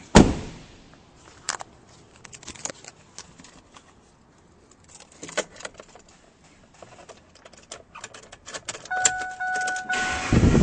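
A loud thump, then keys jangling and scattered clicks. Near the end an electronic chime beeps in short pulses, and the pickup's 5.4-litre V8 begins cranking to start.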